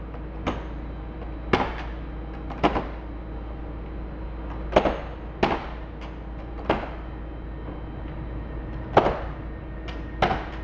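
Retractable centerline and splitter guides in a Boeing 747 main-deck cargo floor being folded down by hand, each giving a sharp metallic clack as it drops into its stowed position. There are about eight clacks at uneven intervals, over a steady low hum.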